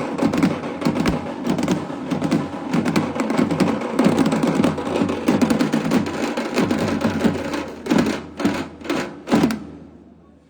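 Drums played in a fast, dense rhythm at a band's sound check. The rhythm ends with a few separate hard strokes about eight to nine and a half seconds in, then dies away.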